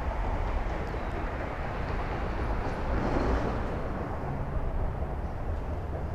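Steady low rumble of traffic crossing the concrete road bridge overhead, heard from underneath.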